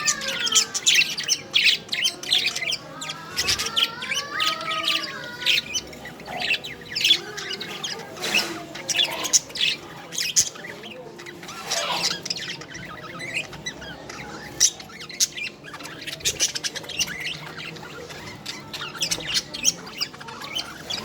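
Budgerigars chattering: a dense run of rapid, short chirps and squawks, with a couple of warbling calls that rise and fall in pitch in the first few seconds.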